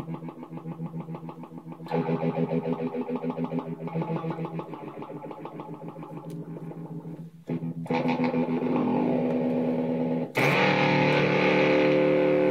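Electric guitar chords played through a DIY Gristleizer in its voltage-controlled-filter mode: the sustained chord pulses about four times a second as the filter is swept. A new chord comes in about seven and a half seconds in, and a louder, brighter one about ten seconds in.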